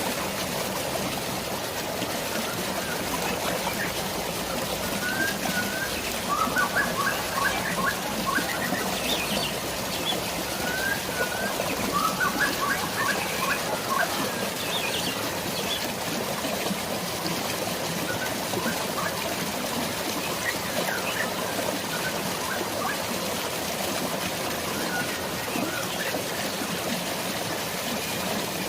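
Steady hiss of rain and flowing water, with birds chirping in short repeated phrases, busiest in the first half and sparser later.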